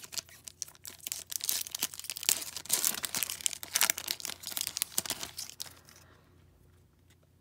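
Crinkly wrapper of an Upper Deck hockey card pack being torn open and crumpled in the hands: a dense crackling and rustling that stops about six seconds in, once the cards are out.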